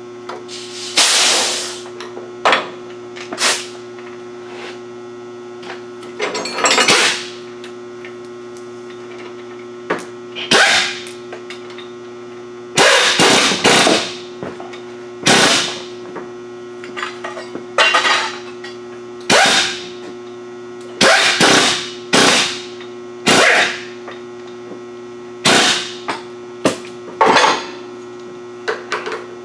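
Hammer blows on metal: about twenty sharp, irregularly spaced strikes, some in quick runs of two or three, each with a short ringing tail. A steady electrical mains hum runs underneath.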